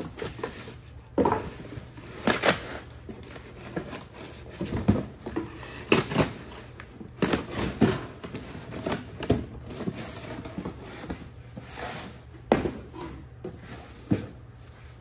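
Unpacking sounds: cardboard boxes and plastic-bagged parts being handled, with irregular rustles, clicks and light knocks.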